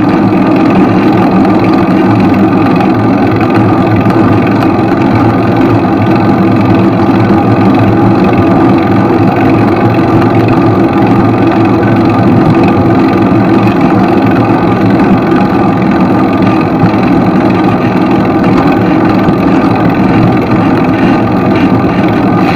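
Loud, steady drone of a motor vehicle engine, unchanging in pitch and level throughout.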